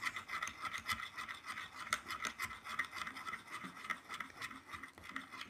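A metal spoon stirring thick, foamy slime in a glass bowl, with rapid, irregular scraping and clicking against the glass.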